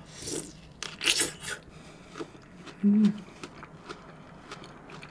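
Close-miked eating sounds from fruit being bitten and chewed: a few short wet, crunchy bursts, the loudest about a second in. About three seconds in there is a brief closed-mouth hum.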